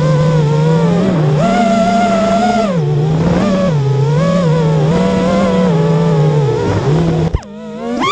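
Racing quadcopter's 2306 2450kv brushless motors whining, the pitch rising and falling again and again with the throttle. A sharp click comes about seven seconds in, the whine drops away briefly, then it sweeps up and down quickly.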